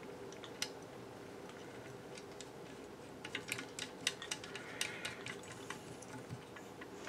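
Faint, scattered light clicks and ticks of small metal parts being handled as washers are fitted onto a carburetor, with a run of quicker ticks a little past the middle.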